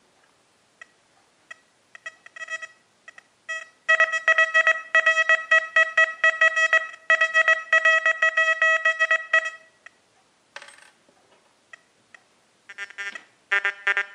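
XP Deus metal detector's audio answering a coin swept back and forth over the search coil: after a few scattered clicks, a rapid run of high beeps starts about four seconds in and lasts about five seconds. Near the end a second run of lower-pitched beeps starts as another object is passed over the coil.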